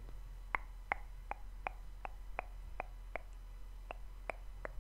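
A steady series of about a dozen sharp mouth clicks, roughly three a second, with a brief pause past the middle.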